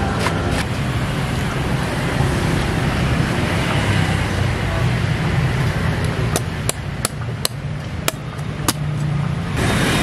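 Machete strokes chopping the husk of a young coconut: a quick run of about seven sharp strikes in the second half, over steady street traffic noise.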